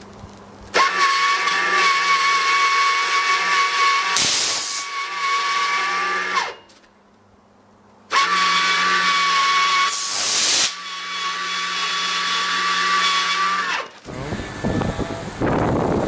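High-voltage substation disconnector switching with arcing: a steady high whine, with a sharp burst of noise partway through, stops suddenly after about six seconds. After a short pause the same whine and burst come again. Near the end a rough rumbling noise takes over.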